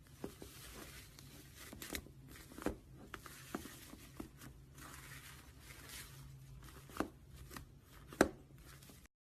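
Slime being squeezed and pulled by hand: a soft crackling with scattered sticky pops and clicks, two of them louder late on. The sound cuts off suddenly just before the end.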